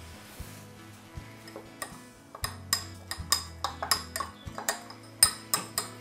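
A metal spoon stirring and clinking against the side of a glass beaker of oils and melting wax. The light, irregular clinks start about two seconds in and come more often toward the end.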